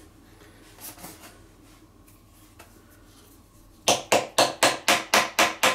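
Light handling noise, then about four seconds in a screwdriver starts rapidly tapping, about four strikes a second, driving a retaining clip back into a Kärcher pressure washer pump.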